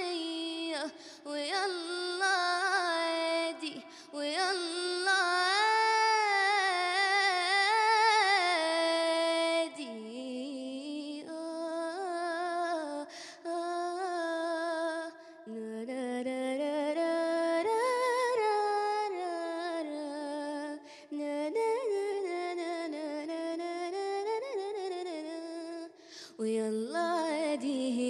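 A young girl singing solo into a handheld microphone with no accompaniment, in long held notes with vibrato and quick ornamented runs. There are short breaths between phrases about ten, fifteen and twenty-six seconds in.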